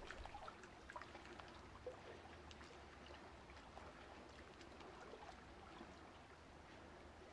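Near silence: a faint steady hiss with a few soft scattered ticks.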